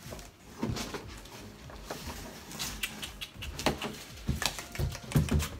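A cardboard box being handled and unpacked: irregular scratching, rustling and light knocks, with a few heavier thumps near the end.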